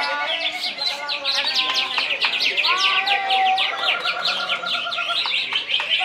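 Several caged songbirds singing at once, the greater green leafbird (cucak ijo) among them: a fast, unbroken run of sharp high chirps, with lower looping whistles over it and a short, even trill about halfway through.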